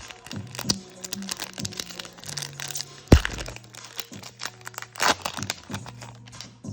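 Foil wrapper of a Japanese Pokémon TCG booster pack crinkling and tearing as it is handled and opened, with one sharp thump about three seconds in, over background music.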